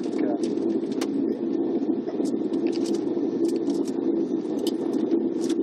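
Coach engine and running noise heard from inside the cabin while it drives slowly: a steady low drone with scattered small clicks and rattles.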